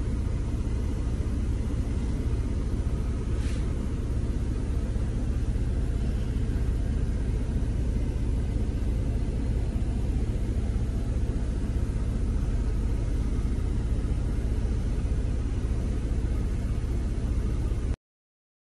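Steady low rumble with no clear pitch, unchanging throughout, which cuts off abruptly near the end; a faint click about three and a half seconds in.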